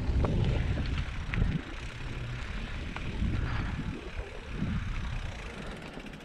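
Electric mountain bike rolling over a dirt singletrack, with wind rumbling on the microphone and tyre noise plus a few sharp clicks and rattles from the bike. The low rumble is strongest for the first second and a half, then eases off and fades toward the end.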